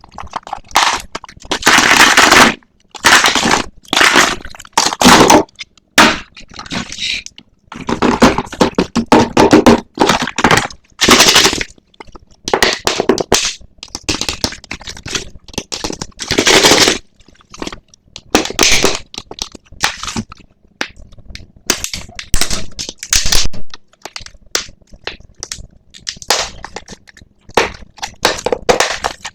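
Toy blind-box packaging being crinkled and torn open by hand: irregular loud crackling bursts with short pauses between them.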